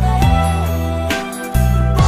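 Khmer pop song playing: sustained synth chords over deep bass drum hits that drop in pitch, one near the start and another about a second and a half later.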